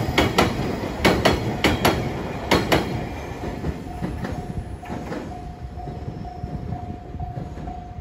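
Freight-train container flatcars clattering over the rail joints in quick double clacks as the tail of the train passes; the clacks stop about three seconds in and the rumble fades. From then on a level-crossing bell rings on, a steady repeating tone at one pitch.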